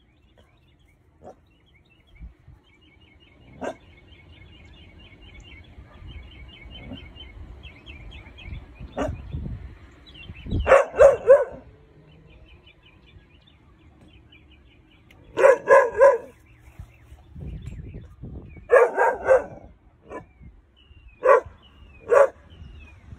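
Weimaraner puppy barking in short bursts of two to four barks, with pauses of a few seconds between them and a couple of single barks near the end. A bird chirps rapidly in the background before the loud barking starts.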